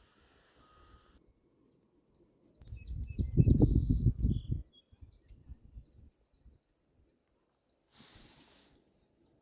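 Small birds singing, a string of short, quick, warbling chirps. A loud, low rumble comes in about three seconds in and lasts about two seconds, and a short hiss comes near the end.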